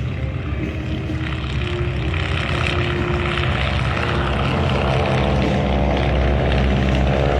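A four-ship formation of Stearman-type biplanes taking off, their radial engines at full power in a steady drone that slowly grows louder.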